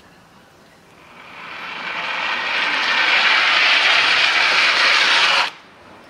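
Ski jumper's skis running down the summer inrun track: a hiss that grows louder as the jumper gains speed and cuts off sharply at takeoff, about five and a half seconds in.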